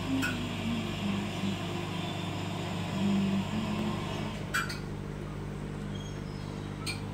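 Steady low electric hum of an aquarium air pump running, with a couple of sharp clicks about four and a half seconds in and near the end.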